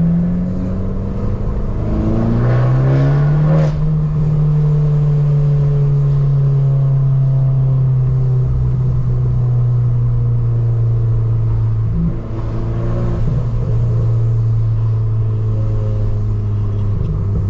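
Abarth 595 Turismo's turbocharged 1.4-litre four-cylinder engine and exhaust accelerating in second gear. The pitch rises for about four seconds, then drops suddenly and settles into a steady drone. There is a brief dip at about twelve seconds.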